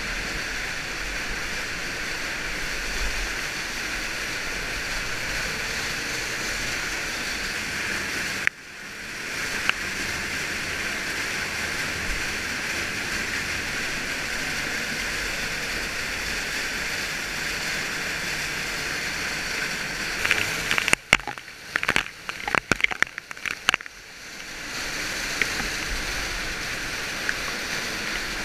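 Underground waterfall rushing steadily, heard up close in its spray. From about 21 to 24 s in, the sound breaks into loud crackles and brief cut-outs.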